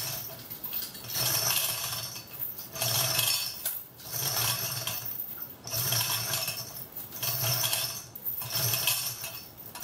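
Hand-pulled chain hoist being worked to lower an engine, its chain clinking and rattling through the hoist in about six even pulls of roughly a second each.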